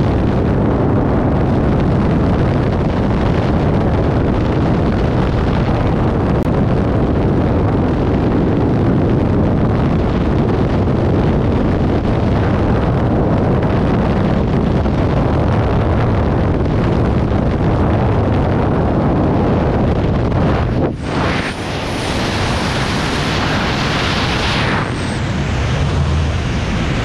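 Freefall wind rushing over a skydiver's body-mounted camera: loud, steady wind noise on the microphone. About three-quarters of the way through it dips sharply for a moment, then carries on hissier.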